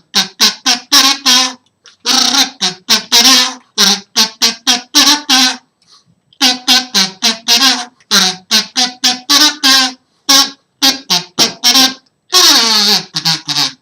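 A kazoo playing a tune in quick short notes, about three or four a second, in several phrases with brief pauses between them. The last note, near the end, is held longer.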